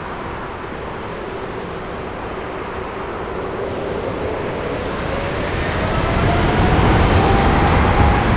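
Boeing 747-8 freighter's four GEnx turbofans spooling up with a rising whine. The engine noise grows louder over the last few seconds as thrust builds for the takeoff roll.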